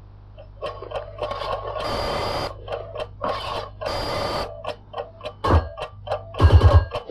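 Cartoon sound effects for a walking alarm clock: a busy, irregular run of clicks, rattles and short mechanical buzzes over a low hum, with a few loud low thumps near the end.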